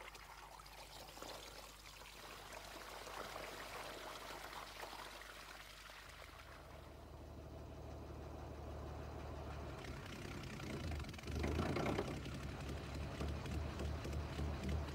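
Water trickling and pouring among orchard trees. About halfway through, a low steady engine hum comes in as a frost-protection wind machine gets going, and near the end a louder regular low beat builds as its big propeller begins to turn.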